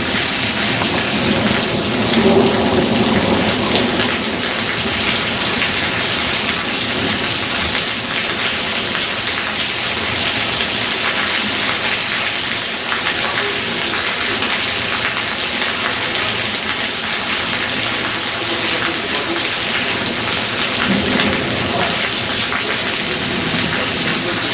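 Heavy rain in a downpour, with a low roll of thunder about two seconds in and another near the end.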